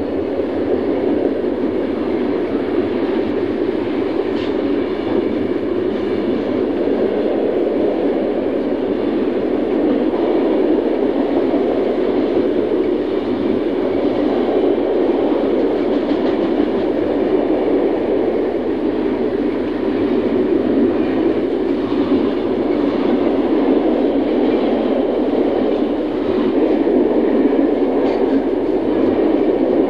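HO scale model freight cars rolling past on the track: a steady rumbling rattle of small wheels on the rails.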